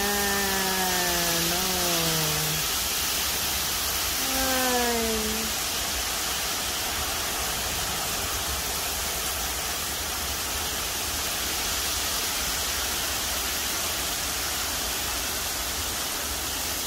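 Heavy rain falling steadily. Near the start, two drawn-out tones slide down in pitch: the first lasts about two and a half seconds, and a shorter one follows about four seconds in.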